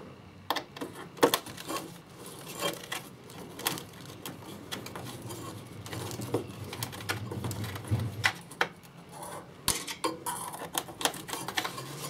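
Irregular light clicks and taps of small screws and a metal retaining plate being handled and fitted by hand, with a brief low hum about six to eight seconds in.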